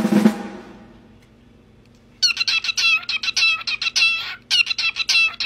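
A drum roll ends right at the start and rings out for under a second. Then, about two seconds in, a bird gives a string of short, rapid, high-pitched squawking calls in quick clusters for several seconds.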